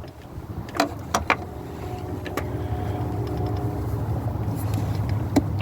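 A few sharp clicks and taps as a hose clamp and the plastic air-intake hose are worked by hand, over a steady low hum.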